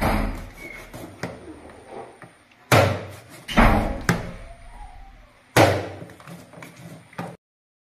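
A large kitchen knife chopping through chicken pieces onto a plastic cutting board: five or six heavy chops a second or more apart. The sound cuts off abruptly near the end.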